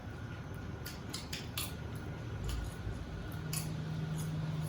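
Eating at the table: a string of short, sharp crunches and clicks from someone chewing salad, with a low steady hum over the last second or so.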